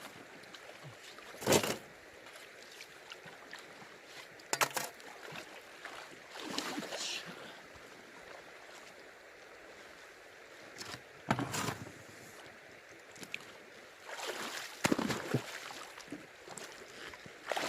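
Intermittent knocks and splashes in shallow river water over the steady rush of the river: about five sharp, loud strikes spaced a few seconds apart, with a shorter watery splash between them.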